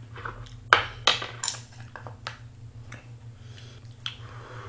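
Chopsticks clicking and tapping against each other and the bowl while picking up food, with four sharp clicks in the first two and a half seconds and softer handling noises after, over a low steady hum.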